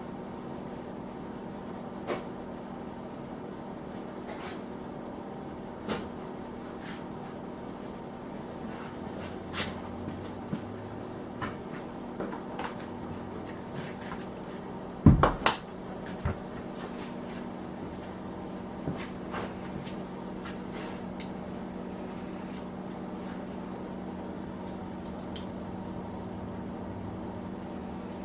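Scattered light clicks and knocks of metal machine parts being handled and fitted, over a steady hum. Two louder knocks come about halfway through.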